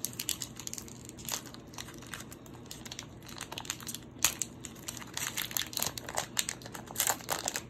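Foil wrapper of a Pokémon trading card booster pack crinkling as it is torn open by hand. The crackles are thicker in the second half, with one sharp crack about four seconds in.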